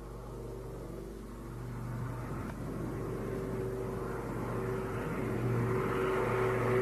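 An engine running steadily and growing gradually louder.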